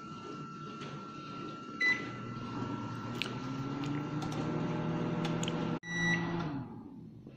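Microwave oven: a short keypad beep about two seconds in, then the oven runs with a steady hum. Near six seconds the hum cuts off abruptly, a longer beep sounds and the fan noise fades away.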